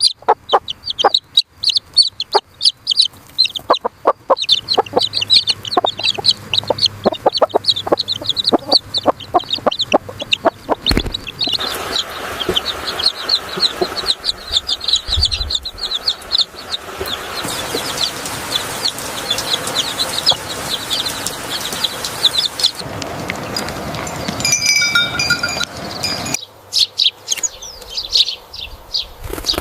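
Chickens calling: a dense run of short, high peeping calls with scattered sharp clicks, and a steady rustling noise under the calls from about twelve seconds in until near the end.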